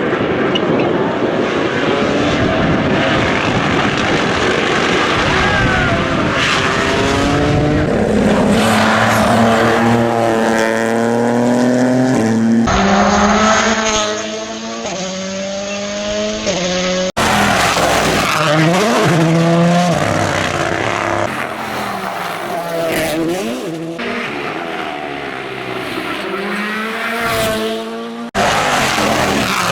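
World Rally Championship cars' turbocharged engines revving hard, the pitch climbing and dropping sharply as they change gear and brake, heard in several short passes cut one after another.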